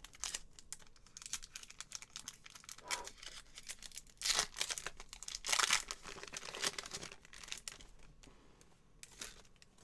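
Foil booster-pack wrapper of a Yu-Gi-Oh! trading card pack being torn open by hand, crinkling and crackling, with the two loudest tears about four and five and a half seconds in. The rustling dies down near the end as the cards are drawn out of the wrapper.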